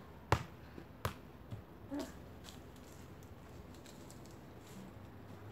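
A football being kicked up and juggled on the foot: two sharp thumps about a third of a second and a second in, then two fainter taps around one and a half and two seconds in.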